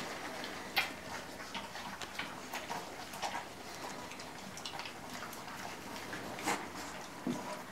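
A litter of puppies eating together from a shared metal feeding pan: irregular small clicks and crunches of chewing kibble and of food and teeth against the pan.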